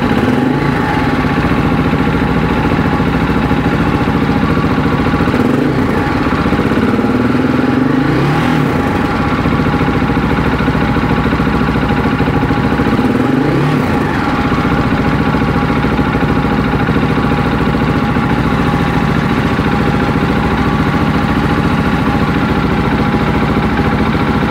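Husqvarna 701's single-cylinder engine running at idle, with three brief throttle blips: about a second in, around six to eight seconds, and near fourteen seconds. It is being run and revved to test whether the check engine fault has been cured.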